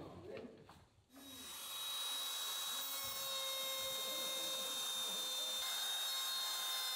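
Trim router running at speed and cutting into a wooden board, a steady high whine over a hiss of cutting. It comes in about a second in and holds level.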